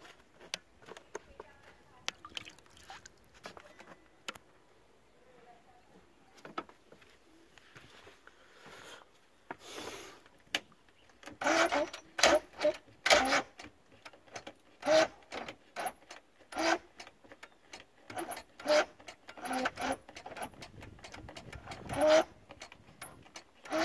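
Indistinct voice in short irregular bursts through the second half, over faint clicks and rattles of things being handled; no engine running or cranking.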